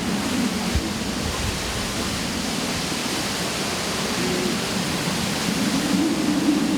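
Derecho wind and heavy rain blowing hard, a steady loud rush with a faint low wavering howl that swells near the end.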